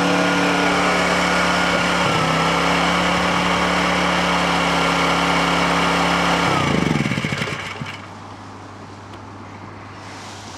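Honda portable generator's engine running at a steady speed, then shut off about six and a half seconds in, its note falling away as it runs down to a stop within about a second.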